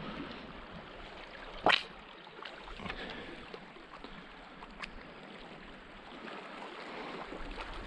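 Shallow sea water lapping and trickling among shoreline rocks, a steady wash, with one short, sharp sound about two seconds in.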